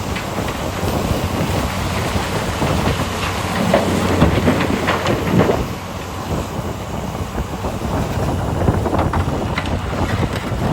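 Heavy mining machinery at work: the diesel engines of a Komatsu PC800 excavator and HD465 haul trucks running with a dense rumble and an irregular clatter of rock and steel. The clatter is loudest about four to five seconds in and eases off shortly after.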